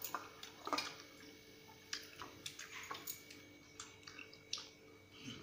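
Hand-eating sounds: fingers mixing rice with fish curry on a steel plate and then chewing, heard as faint, irregular soft clicks and squishes.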